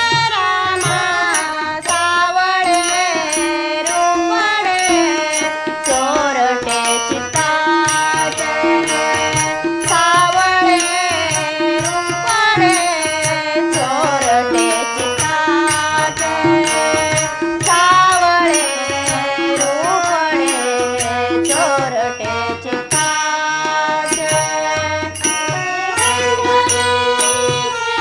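Instrumental interlude of a Marathi devotional abhang: a gliding melody over a steady hand-drum beat.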